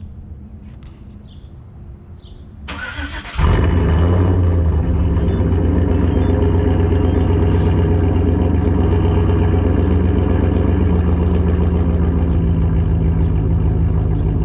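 2013 Chevrolet Silverado V8 with a Stage 2 BTR cam and deleted catalytic converters, warm-started at the exhaust tip. The starter cranks briefly nearly three seconds in, then the engine fires up loud and settles into a choppy, lopey idle from the cam.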